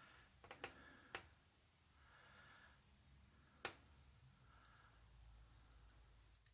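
Faint clicks of small parts and tools inside a padlock being dismantled: a few sharp ticks in the first second or so and one more a little past halfway, over low room tone.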